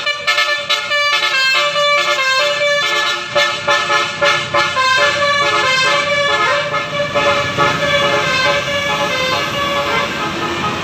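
Telolet multi-tone bus horns playing quick melodic sequences of notes. The notes fade in the later part and give way to the steady noise of engines and traffic.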